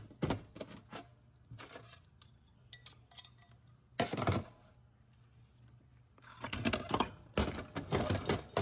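Steel clutch parts of an automatic transmission clinking and clattering as they are handled and set down. A sharp metallic clank comes about four seconds in, and a quick run of clinks near the end.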